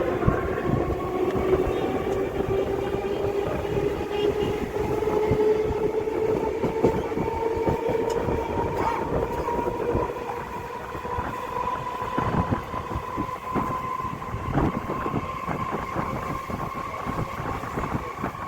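Electric multiple-unit suburban train pulling away, its traction-motor whine rising slowly in pitch as it gathers speed, with wheels clacking over rail joints.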